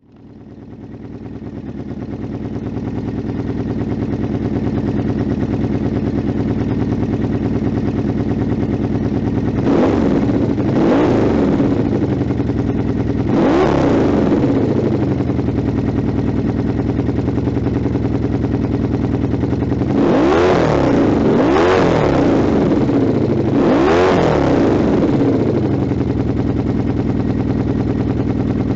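Honda VF750 V4 motorcycle engine idling through a Supertrapp silencer with an open end cap, blipped six times in two groups of three with quick rises and falls in pitch, settling back to a steady idle between groups. The sound fades in over the first few seconds.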